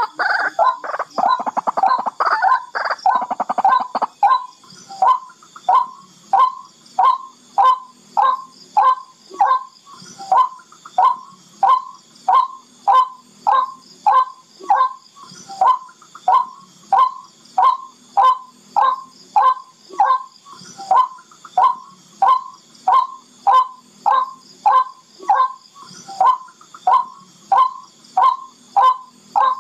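Barred rail (tikling) calling: a dense run of rapid harsh notes, then from about four seconds in a steady series of short, downslurred notes, about two a second.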